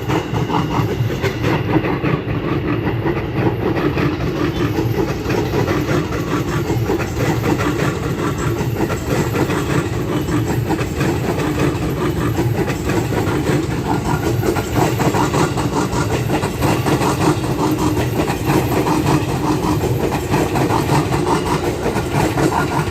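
JR 205 series electric commuter train passing close by, its steel wheels clattering steadily over rail joints and station points in a loud, even run of rapid clicks.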